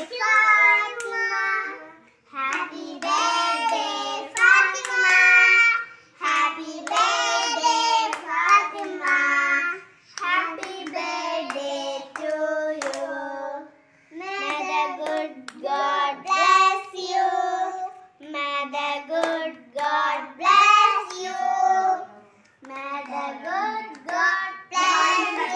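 A young child singing a song in repeated lines, with short pauses about every four seconds, while clapping hands along with it.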